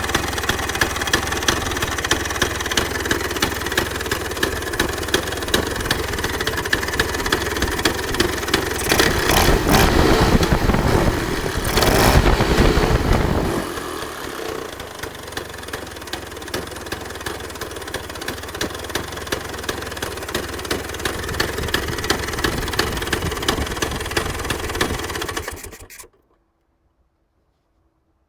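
Freshly rebuilt 1966 Vespa Sprint single-cylinder two-stroke engine, fitted with a Pinasco 177cc aluminium cylinder, running and revved up about a third of the way in, then settling back to a lower, steadier run. The sound cuts off suddenly near the end.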